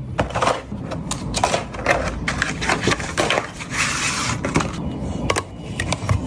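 Hands handling a smartphone box and its packaging: irregular rustling and scraping with sharp clicks and knocks.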